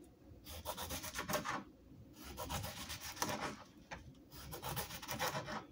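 Kitchen knife sawing through a cucumber on a cutting board, a rapid scraping in three runs of strokes, slice after slice.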